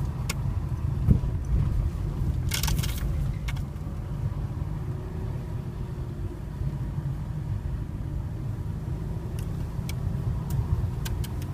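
Fiat Panda driving on a narrow mountain road, its engine and tyres making a steady low rumble in the cabin. There is a single thump about a second in and a brief rattle of sharp clicks a little later.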